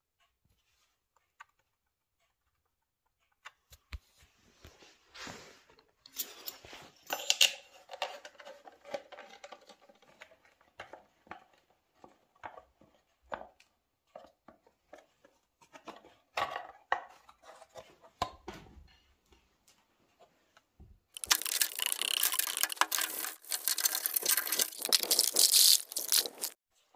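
Hard plastic engine cooling shroud being handled and fitted by hand: scattered scrapes, crackles and knocks. About three-quarters of the way in, a loud, dense crackling hiss lasts about five seconds and then stops suddenly.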